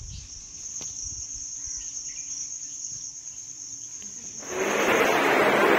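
Insects shrilling steadily in one high, even tone. About four and a half seconds in, this cuts off and a much louder, noisy rushing hubbub takes over.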